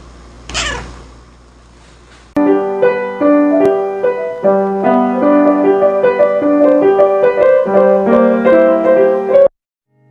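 Piano playing a melody over held low notes, cut off abruptly near the end. Before the piano comes in, there is a faint low hum and one brief falling swoosh.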